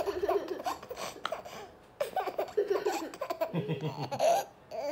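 A toddler laughing out loud in repeated bursts of giggles, with a short pause about two seconds in.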